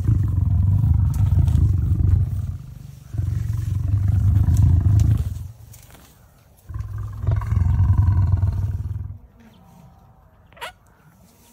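Lion grumbling: three long, deep rumbling growls of a couple of seconds each, separated by short pauses.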